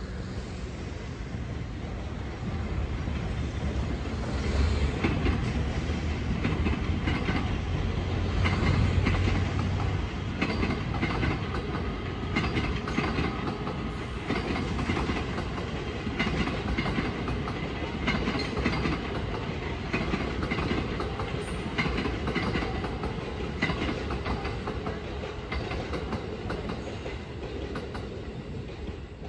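Electric passenger train running through the station tracks, its wheels clicking and clacking over rail joints and points. The rumble builds over the first few seconds and fades away near the end.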